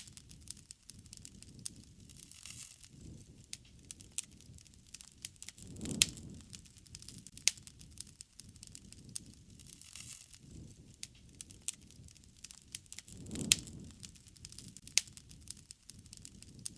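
Wood fire crackling with many sharp pops and snaps over a low rustle of flames. Twice, a louder pop comes with a brief low rush of flame.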